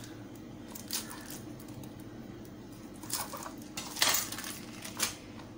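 A knife slicing a cheese slice into strips on a wooden chopping board, with a few short taps and scrapes, the longest about four seconds in. A steady low hum runs underneath.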